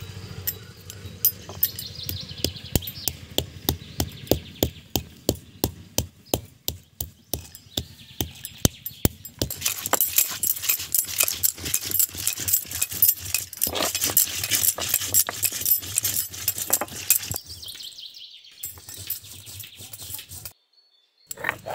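Stone roller knocking on a flat grinding stone, crushing coriander seeds, dried red chillies and garlic: sharp knocks about twice a second, then from about halfway a faster, denser crunching and scraping. The sound breaks off briefly twice near the end.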